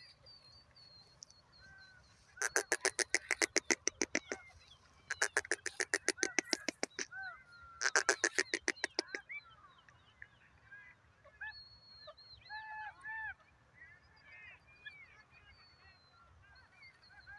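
Female grey francolin calling: three bursts of rapid, harsh repeated notes, about ten a second, each lasting one and a half to two seconds. Fainter chirps from small birds follow.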